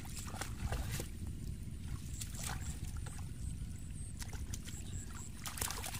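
Hands splashing and sloshing in shallow muddy water, with a few short, sharper splashes over a steady low rumble.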